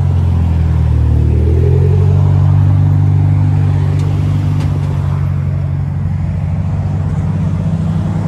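A car engine running at a low, steady speed, a deep rumble whose pitch shifts slightly about a second and a half in.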